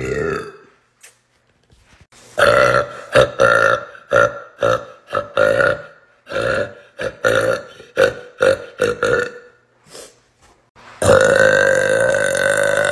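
A woman burping loudly on purpose: a brief burp, then a rapid string of many short burps, then one long burp of about two seconds at a steady pitch near the end.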